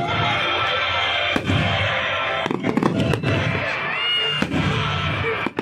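Aerial firework shells bursting overhead, with several sharp bangs and crackling over a steady bed of music.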